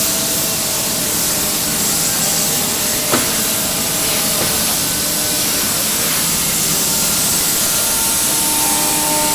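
Steady loud whir and hiss of a twin-head CNC router cutting guitar bodies from wood blanks, with a short knock about three seconds in.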